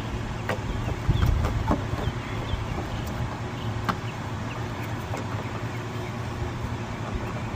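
A few light plastic clicks and knocks as the glove box damper strut is handled at its mount, over a steady low hum.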